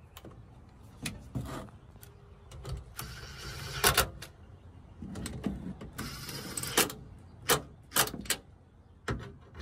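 Makita cordless driver running in several short bursts as it drives the tail light's mounting screws, the longest burst about a second long about three seconds in, with sharp clicks and knocks in between.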